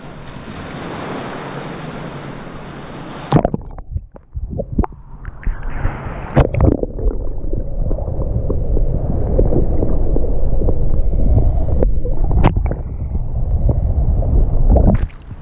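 Shallow seawater heard on an action camera that is dipped below the surface: an even open-air hiss of wind and water at first, a splash-like knock about three seconds in, then muffled low rumbling and gurgling with many small clicks and knocks as water moves over the submerged camera. Near the end the camera comes back out of the water and the open-air hiss returns.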